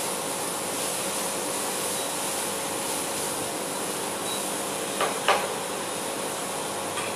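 Banana slices sizzling in melted butter in a frying pan, a steady hiss, as a spatula turns them; the spatula knocks against the pan twice about five seconds in.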